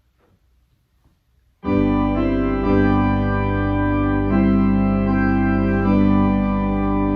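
Near silence, then about one and a half seconds in an organ starts a sustained chord and plays on in held chords, the inner notes moving every second or so.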